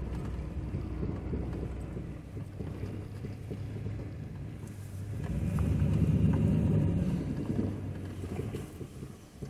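Chevrolet Silverado pickup driving on a gravel road, its engine and tyres heard from inside the cab as a steady low hum. The hum grows louder about halfway through and then eases off again.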